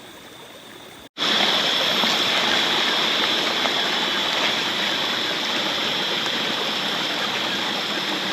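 Small stream running over rocks, a steady rush of water. About a second in, the sound cuts and comes back much louder and closer.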